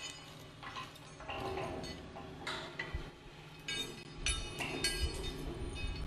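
Metal-on-metal clanks and clinks of structural steel being worked at a beam-to-column connection, a handful of irregular strikes that each ring briefly, the strongest ones past the middle. Under them runs a steady low hum.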